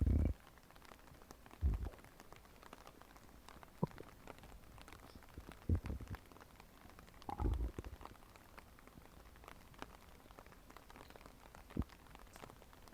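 Human stomach growling and gurgling: several short, low rumbles at uneven intervals, with faint clicks between them.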